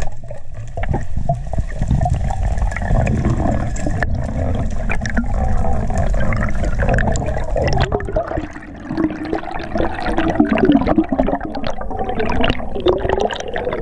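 Underwater water noise against a diving camera housing as a freediver swims, a steady low rush with gurgling bubbles that grows busier in the later seconds as bubbles stream past on the way up.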